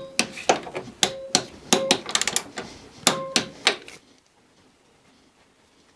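A 1/2-inch click-type torque wrench being worked on a suspension bolt set to 30 Nm: a string of sharp metallic clicks and clacks from the wrench, some ringing briefly, stopping about four seconds in.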